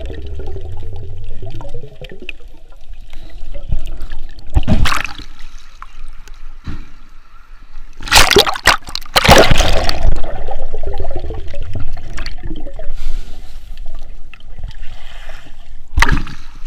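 Sea water sloshing and splashing around a snorkeler's camera. There are loud splashes about five seconds in, a longer run of splashing about eight to ten seconds in, and another splash near the end.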